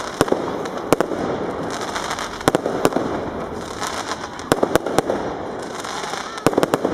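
Aerial fireworks going off: sharp bangs and cracks, some single and some in quick groups, with a cluster of reports near the end, over a steady hiss.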